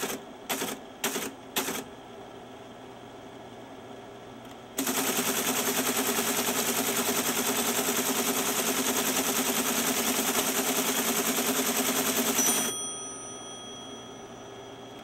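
Teletype Model 33 clacking through a few single keystrokes, each one a short mechanical cycle. It then runs continuously for about eight seconds at its steady rate of about ten characters a second while the side tape punch punches paper tape, and stops suddenly, leaving the motor's hum.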